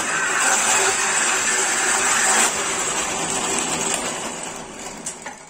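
Schulz FSB16 bench drill press running and drilling into wood; the cutting noise eases about halfway through, and the machine's sound fades away near the end.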